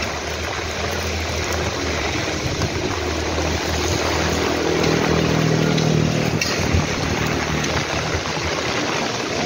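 Steady rushing of heavy rain and running water, with a low engine hum underneath that swells around the middle.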